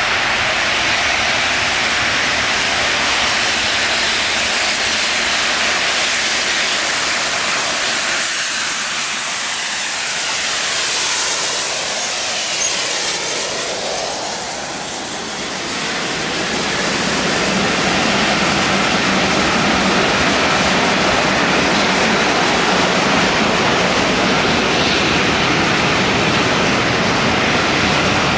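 Double-headed steam train, A1 Pacific 60163 Tornado and GWR King class 6024 King Edward I, running in and passing close by with a steady rushing rumble and hiss. About halfway through the sound dips and sweeps as the engines go past, then the coaches keep rolling by with a steady rail noise.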